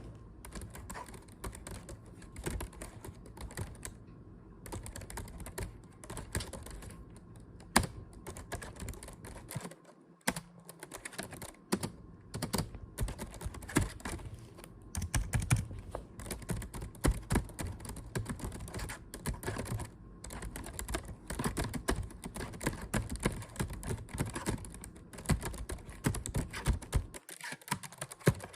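Typing on a computer keyboard: quick, irregular key clicks in runs, with a short pause about ten seconds in.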